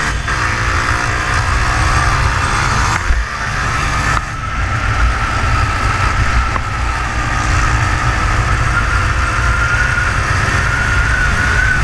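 Small motorcycle engine running while being ridden, with a steady whine that slowly rises in pitch as it pulls, under heavy wind rumble on the microphone.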